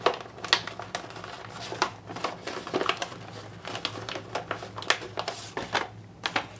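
Stiff paper crinkling and rustling with irregular sharp crackles as a bag made of sewn magazine pages is opened out and handled.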